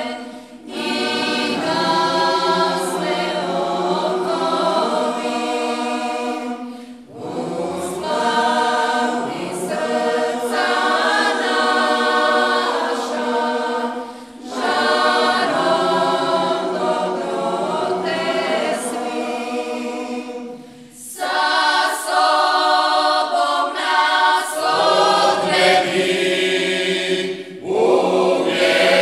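Mixed choir singing a traditional Marian folk hymn, in phrases of about seven seconds with short breaks for breath between them.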